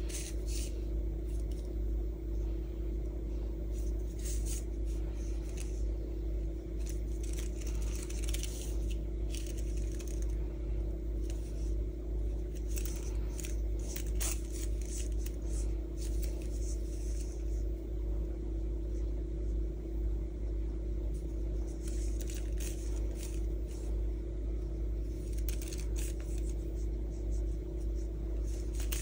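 Cotton yarn and a tapestry needle being drawn through crocheted stitches: soft, scattered scratching and rustling, with a few light metallic clinks from the strap's clasp ring. A steady low hum runs underneath.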